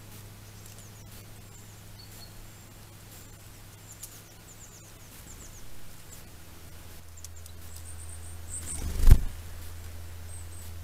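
Faint, high, short chirps from a small bird over a steady low electronic hum from a trail camera's microphone. About nine seconds in, a loud rush of noise swells and peaks suddenly.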